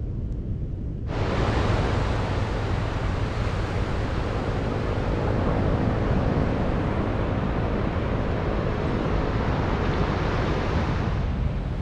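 Steady hiss of surf breaking and washing up a flat sandy beach, over a low rumble of wind buffeting the microphone. The surf starts suddenly about a second in and cuts off near the end.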